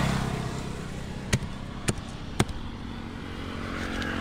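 Three sharp chops about half a second apart, a fish-cutting knife striking a wooden chopping block, over a steady hum of road traffic.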